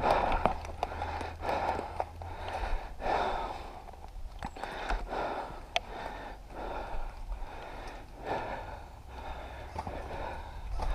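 A person breathing hard close to the microphone, a noisy breath about every second and a half, with a few faint clicks.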